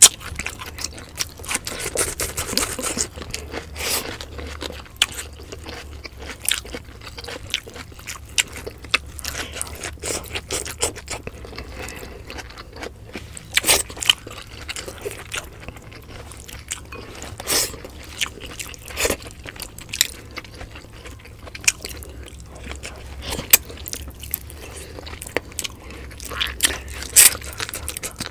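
Close-miked eating by hand: chewing and crunching of food, with scrapes and crisp clicks as fingers pick grilled tilapia, rice and blanched vegetables off a banana leaf. A few louder clicks come about halfway through and near the end, over a low steady hum.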